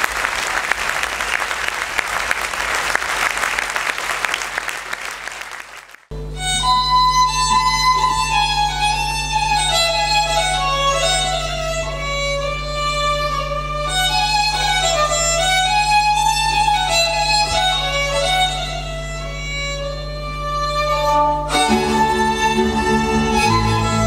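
Audience applause, fading out about six seconds in, then a sudden cut to fiddle music: a violin melody over steady held low notes, with a lower accompanying part coming in near the end.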